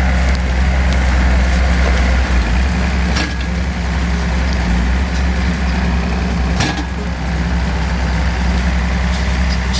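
Heavy machine's engine running steadily with a deep, even hum, with two sharp clicks or knocks about three and six and a half seconds in.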